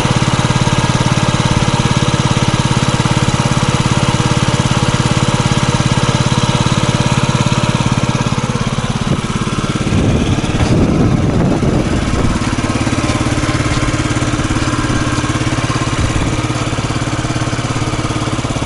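Yamaha JOG scooter engine idling steadily, running smoothly now that its clogged air cleaner has been replaced. The sound wavers and swells briefly about ten seconds in, then settles back to an even idle.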